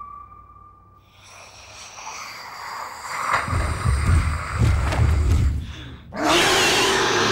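Creature sound effects: snorting, heavy breaths swelling from about a second in into low rumbling growls, then a loud rushing hiss about six seconds in that lasts over a second.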